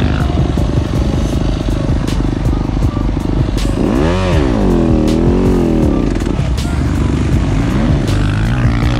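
Yamaha motocross dirt bike engine running hard while being ridden. Its pitch rises and falls with the throttle, with a marked rev up and back down about four to six seconds in.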